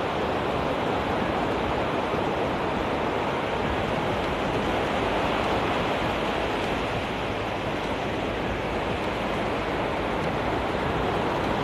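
Surf breaking and washing up onto a sandy beach: a steady, even rush of water noise.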